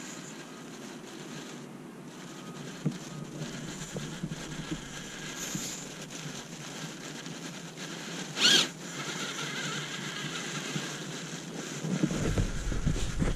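Electric RC rock crawler running on a 3S battery, its motor and gears whining steadily as the tyres churn through snow, with one brief loud rush of sound about two-thirds of the way in. A low wind rumble on the microphone joins near the end.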